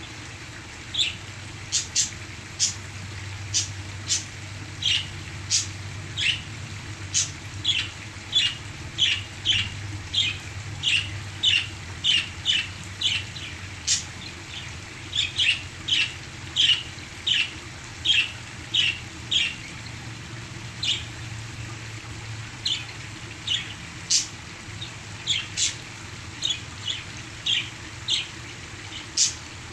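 Pet parakeets chirping, short sharp calls one or two a second, over a steady rush of waterfall sound.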